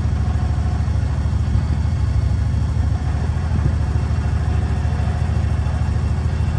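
A vehicle engine idling steadily, deep and even, with no change in speed.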